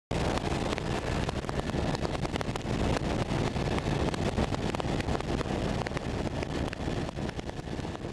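Helicopter in flight heard from inside the cabin: a steady, dense rotor and engine noise that starts abruptly.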